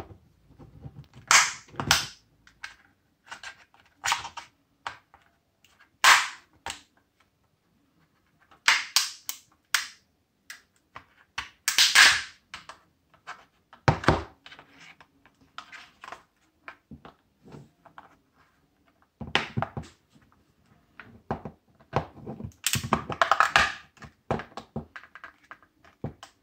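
Plastic case of a laptop battery pack clicking and cracking as a flat screwdriver pries its seam apart: sharp, irregular snaps every second or two, with a duller knock partway through.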